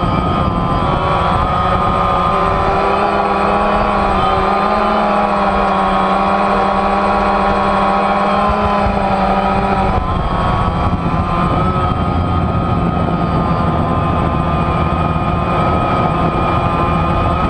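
DJI Phantom quadcopter's four brushless motors and propellers whining steadily, heard loud and close from the camera mounted on the drone. The pitch shifts a little a few times as the throttle changes, most clearly about ten seconds in.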